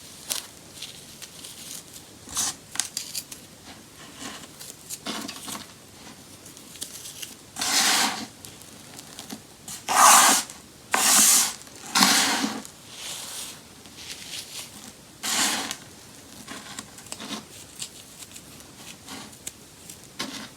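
Baking soda being crumbled, a series of irregular crunchy, gritty bursts with lighter crackling between them, the loudest group about ten to twelve seconds in.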